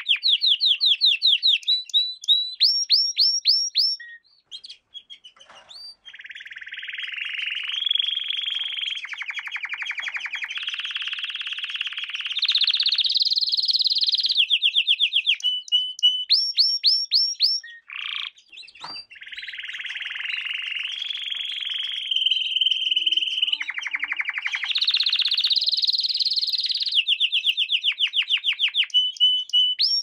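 Domestic canary singing a long song of fast repeated notes and rolling trills, with short breaks about five and eighteen seconds in.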